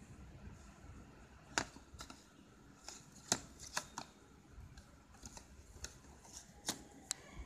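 Hands handling product packaging: a series of irregular sharp clicks and light rustles of cardboard and plastic, about ten in all.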